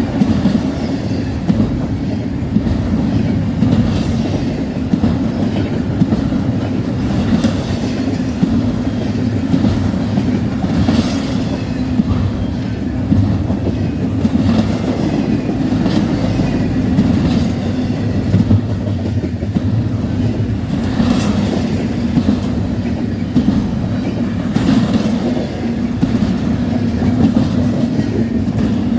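Intermodal freight train's cars rolling past with a steady rumble, wheels clicking over rail joints at irregular intervals.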